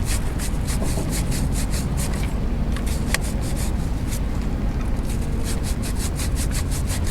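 A stiff chain brush scrubbing a wet motorcycle drive chain in quick back-and-forth strokes, about four a second, pausing briefly twice, while the chain is cleaned with Simple Green. A steady low rumble runs underneath.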